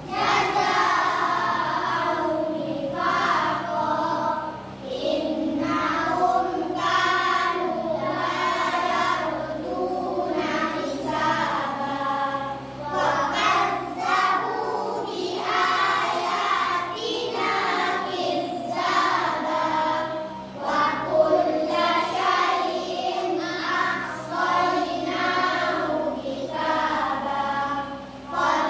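A group of children reciting the Quran together in unison, a melodic chant sung in long phrases with a brief pause for breath about every eight seconds between verses.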